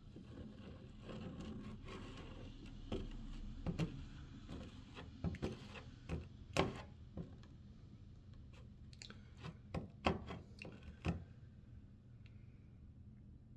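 Workbench handling noises during a plastic fairing repair: a run of sharp clicks, taps and scrapes, irregular and clustered through the middle, over a steady low hum.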